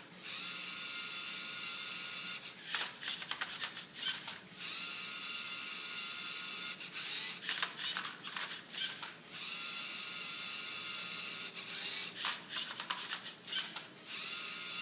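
Lego Mindstorms EV3 servo motors of a MindCub3r Rubik's Cube robot whirring in repeated spells of steady whine of about two seconds each, broken by bursts of plastic clicking and clacking as the gears and arm move the cube.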